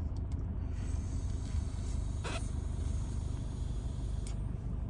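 Low, steady rumble of a car idling and creeping in heavy traffic, heard from inside the cabin. A short rustle or scrape cuts in about two seconds in.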